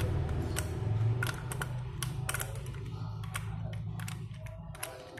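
Socket ratchet clicking in short irregular runs as it is worked on cylinder head bolts, several sharp metal clicks a second.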